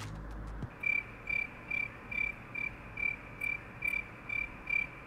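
A short, steady, high-pitched chirp repeating evenly about twice a second, starting about a second in, over a faint hiss.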